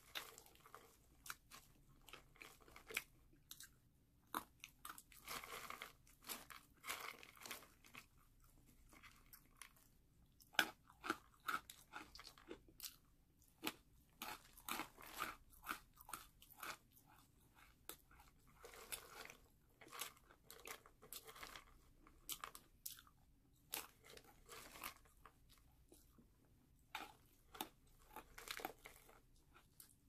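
Close-miked eating of crunchy snack food: crisp bites and crunching chews in quick, irregular clusters.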